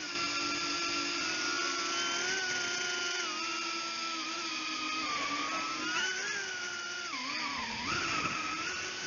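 A 135 mm FPV drone's brushless motors whining in flight, heard from the drone's own camera, their pitch wavering with the throttle. The pitch dips about seven and a half seconds in and climbs back a moment later.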